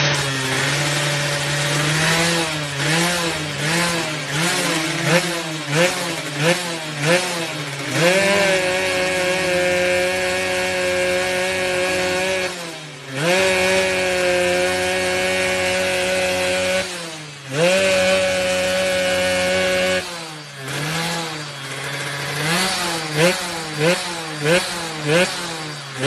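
Yamaha F1ZR two-stroke engine with a PWK 28 carburettor, revved in quick throttle blips, then held at high revs three times for several seconds with short drops between, then blipped again. The exhaust has the raspy 'ngorok' note the bike is set up for.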